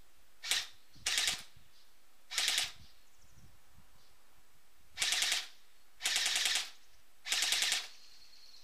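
ASG M15 S.I.R. Sportline airsoft electric gun firing six short bursts of full-auto fire, each a quick rattle of shots lasting under a second. The first burst is very brief.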